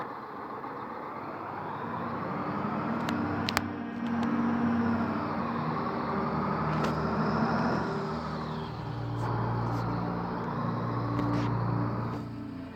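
Car engine revving up and down in long swells, with a few sharp clicks and music playing faintly underneath.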